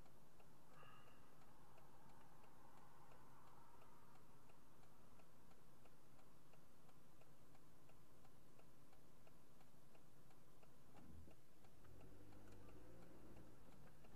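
Car turn-signal indicator ticking faintly and evenly, about two to three ticks a second, over a low engine idle hum that grows near the end as the car pulls away.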